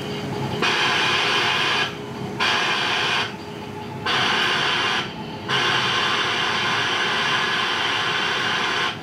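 FM radio receiving audio over a laser link, with loud static hiss cutting in and out four times as a card is passed through the laser beam and interrupts the optical signal.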